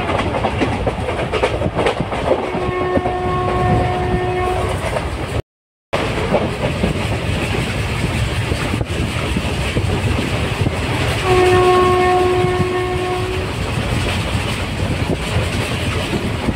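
Train running along the track with a steady rumble, sounding its horn twice, each blast a steady note of about two seconds, the blasts some eight seconds apart. A brief dropout about five seconds in.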